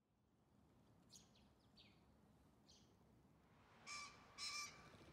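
Male green pheasant crowing: two harsh calls about half a second apart near the end. Before them come a few faint, thin, falling chirps from a small bird.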